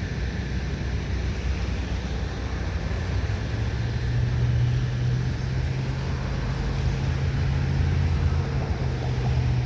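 Wind rumbling on the microphone, with a steady low engine hum that joins about three and a half seconds in.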